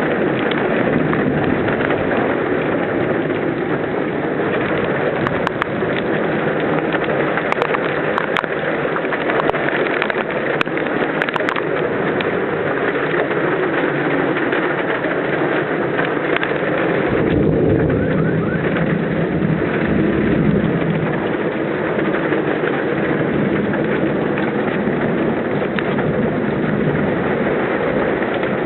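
Heavy rain falling steadily, with a few sharp ticks in the first half. About two-thirds of the way through, a low rumble of thunder rolls in and lasts several seconds.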